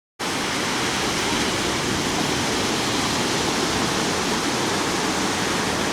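Steady rushing noise of surf on a sandy beach, even and unbroken, starting just after the recording begins.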